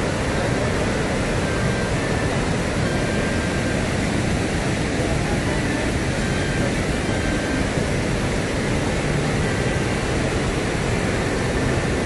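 Heavy, steady rush of a large river in high flow pouring over wide rocky falls and rapids, a constant even noise of white water.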